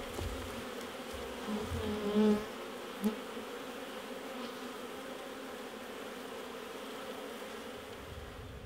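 Honey bees buzzing steadily in a crowd around their nucleus box, with a few bees droning close past the microphone about two seconds in.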